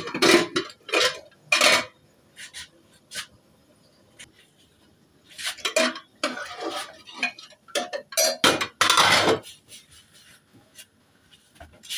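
Metal kitchen utensils and pots clattering and clinking in short separate knocks as they are picked up and set down, with a longer clatter about nine seconds in.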